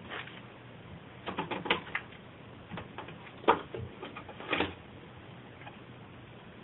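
Scattered light clicks and rustles close to the microphone, in small irregular clusters, with the sharpest click about three and a half seconds in.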